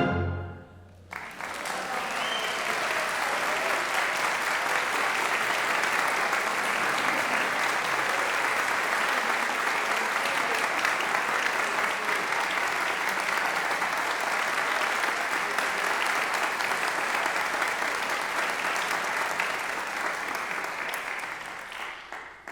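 The last of a concert band's final brass chord dies away, then audience applause starts about a second in, holds steady, and fades out near the end.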